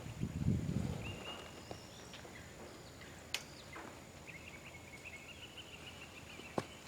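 Quiet outdoor ambience: a low rumble of handling noise in the first second, then faint high-pitched chirping and two sharp clicks.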